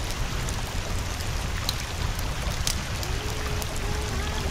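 Steady rain ambience, an even hiss with scattered drip-like ticks, over a low hum; a faint wavering melodic line, like muffled distant singing, comes in about three seconds in.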